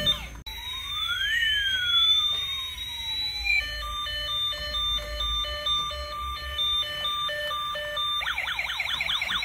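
Toy police car's electronic siren cycling through its sounds: a short burst of pulsed beeping, then a wail sweeping up and down, then several seconds of on-off beeping, and near the end a fast warbling yelp.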